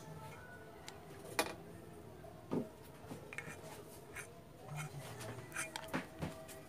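Faint handling sounds from gluing a jet pump pressure tank's metal cap with a hot glue gun: the nozzle rubbing and scraping on the metal, with a few sharp small clicks scattered through.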